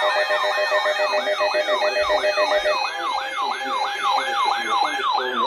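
Siren in a fast yelp, about four falling sweeps a second, with a steady tone beneath it that cuts off about two and a half seconds in.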